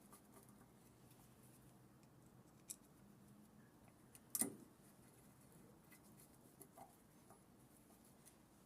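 Near silence with a few light clicks and one louder knock about four and a half seconds in, from hand-tightening the fasteners on a vacuum motor being assembled.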